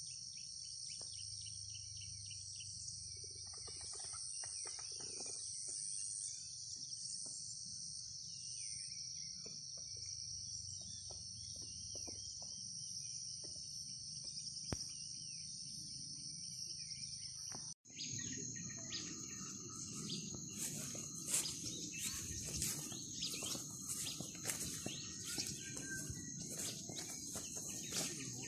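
A chorus of insects shrilling steadily in high, even tones, with occasional bird chirps. After a sudden cut about 18 s in, a different insect chorus continues, with rustling and frequent short crunches, like footsteps through undergrowth.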